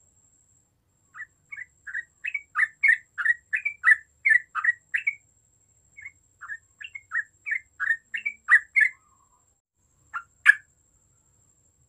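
Yellow-vented bulbul (trucuk) in full song: rapid runs of short notes, about three a second, in two phrases of a dozen or so notes each, then two single notes near the end.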